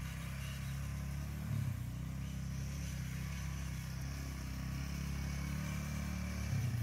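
Small kids' dirt bike engine running at low speed, its note rising briefly about a second and a half in and again near the end.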